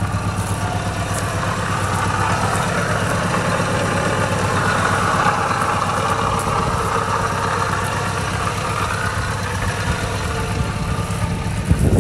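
1984 Mitsubishi L200 Express ute's engine idling steadily, louder for a few seconds in the middle. It is an engine the owner says has a leaky exhaust and a knackered but still working water pump. A short knock comes near the end.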